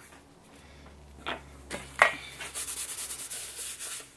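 Hands handling small craft items on a tabletop: two light taps about a second apart, the second the louder, then a run of quick scratchy rubbing strokes.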